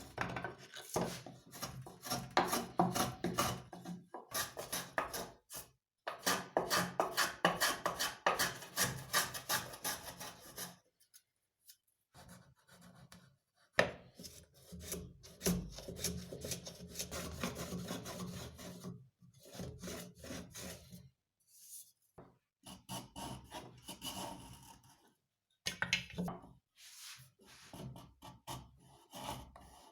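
A hand tool rubbing and scraping on wood in quick repeated strokes, several a second, in runs broken by short pauses.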